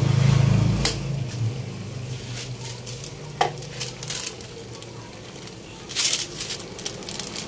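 Coconut milk and taro leaves simmering and sizzling in a metal wok, cooking down until the oil comes out, with a metal ladle clinking against the pan about three times. A low hum is loudest in the first second.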